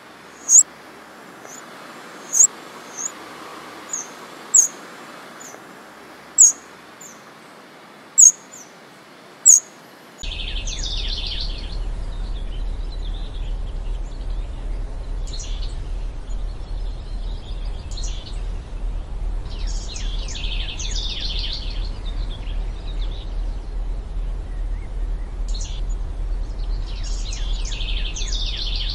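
A Eurasian wren giving sharp, very short high call notes, one every second or two. About ten seconds in this gives way to a house wren singing, several phrases of rapid high notes a few seconds apart, over a steady low hum.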